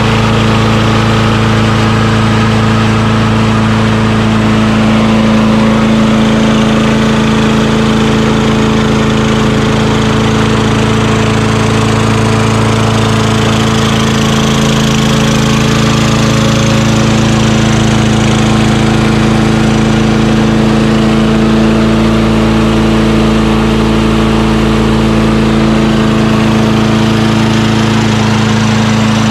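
Craftsman rear self-propelled lawn mower's 6.5 HP Tecumseh single-cylinder four-stroke engine running steadily at a constant speed after a carburetor cleaning, with no hesitation.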